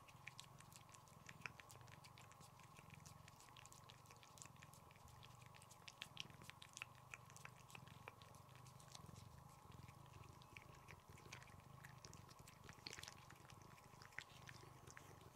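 Cats licking a wet puree treat from a squeeze tube: soft, irregular wet licking clicks, several a second, with a steady low hum beneath.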